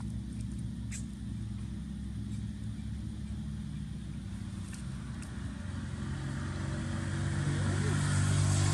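A motor vehicle's engine running steadily, growing louder over the last few seconds as it comes closer.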